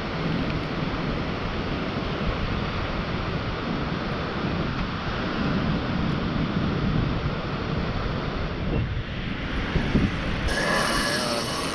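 Wind buffeting the microphone over the steady rush of surf breaking on the beach, changing abruptly to a brighter hiss near the end.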